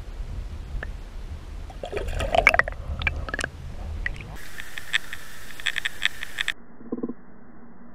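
Water rushing and clicking around a Water Wolf underwater fishing camera as it is pulled through the water on a line. There is a louder spell of splashing and crackling about two seconds in, and the sound changes abruptly twice where separate clips are cut together.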